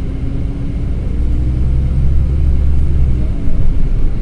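LiAZ 5292.22 city bus under way, heard from inside the passenger cabin: a steady low engine drone over road noise, easing off a little past three seconds in.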